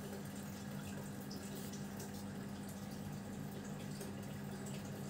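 Faint room tone: a steady low hum under an even hiss, with a few light ticks.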